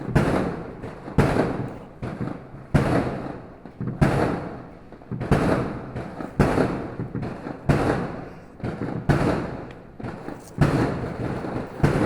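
Fireworks going off in a steady series: a loud bang about every second and a half, each echoing away, with smaller pops in between.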